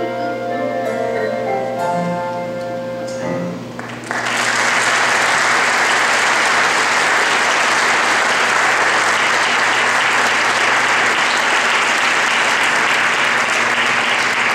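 A pit orchestra's closing held notes. About four seconds in, an audience breaks into applause, which stays steady and is the loudest sound from then on.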